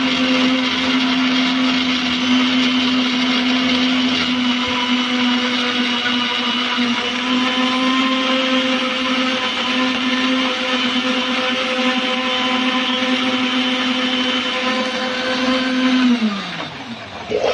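Electric countertop blender running steadily at full speed, blending a milkshake. Near the end its motor note falls as it winds down to a stop.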